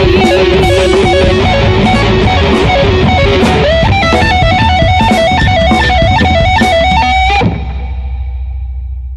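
Instrumental end of an anime opening theme song: rock music led by electric guitar over a steady beat. About seven and a half seconds in it stops on a held chord that rings out and fades.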